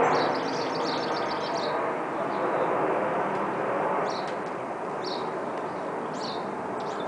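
Jet noise from a descending Boeing 787-9 Dreamliner passing overhead, a steady rushing sound that slowly fades as the airliner moves away. A small bird chirps over it: a quick run of chirps at the start, then single chirps about once a second.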